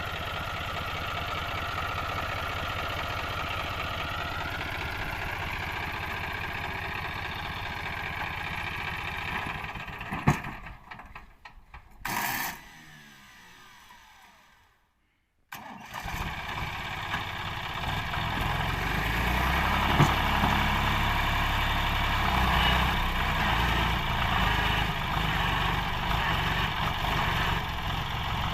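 John Deere 5103 tractor's three-cylinder diesel engine idling steadily. About ten seconds in, a sharp click is heard and the engine sound dies away, with a brief burst and a moment of silence. From about halfway the engine is running again, louder, to the end.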